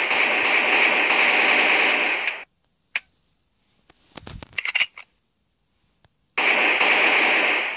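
AK-47 automatic-fire sound effect from a phone app: a dense continuous rattle that cuts off suddenly about two and a half seconds in as the magazine runs empty. A single click follows, then a cluster of clicks and knocks between about four and five seconds in while the phone is shaken to reload, and the automatic fire starts again about six and a half seconds in.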